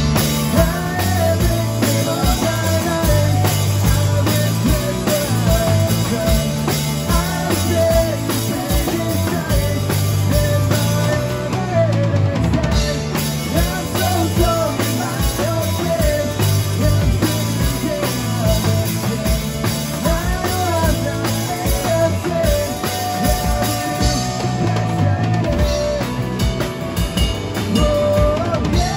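Live rock band playing: drum kit keeping a steady beat under bass guitar and amplified electric guitar, with a melody line sliding up and down over them.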